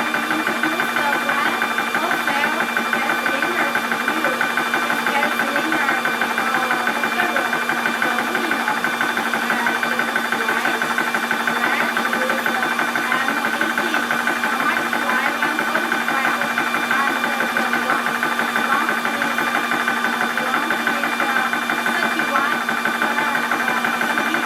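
Portable 12-volt PCP high-pressure air compressor running steadily under load, a fast even mechanical chatter of the pump under a constant whine, as it compresses air into a cylinder with its pressure relief screw closed.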